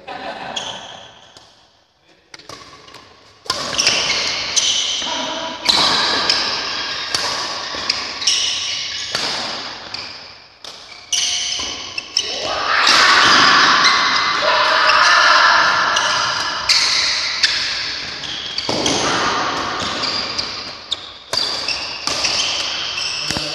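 Badminton rackets striking a shuttlecock in a fast rally: sharp cracks about once a second, echoing in a large hall, with voices mixed in.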